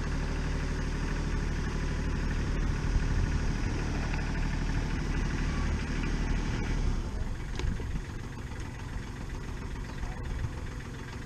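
A vehicle engine running steadily at idle, then dying away about seven seconds in.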